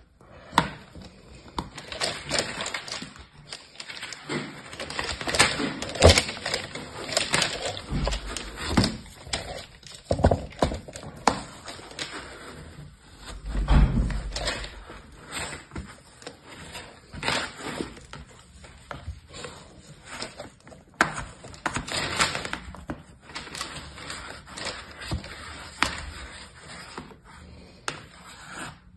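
Kinetic sand in a plastic tray being pressed, patted and scraped by hand and with small plastic molds: irregular soft crunching and scraping, with a dull thump midway.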